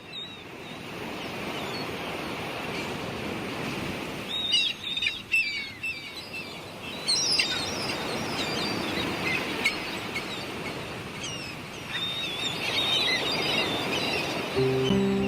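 Birds chirping in a few short clusters of quick calls over a steady rush of sea surf. Music comes in near the end.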